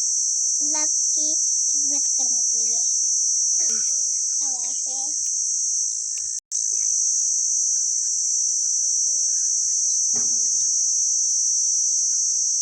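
Steady, shrill chorus of insects such as crickets, unbroken except for an instant about six and a half seconds in. Several short pitched calls come through it in the first five seconds and once more near ten seconds.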